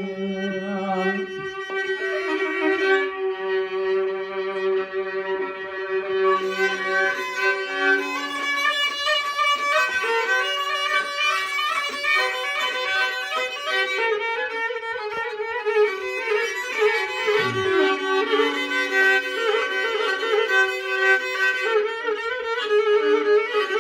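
Violin playing an instrumental passage of a Turkish folk tune (türkü) over a held drone note.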